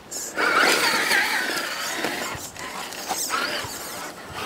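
Vanquish H10 Optic RC trail buggy's electric motor and geared drivetrain whining as it crawls over rocks, the whine rising and falling with the throttle, with scraping mixed in. It starts about half a second in.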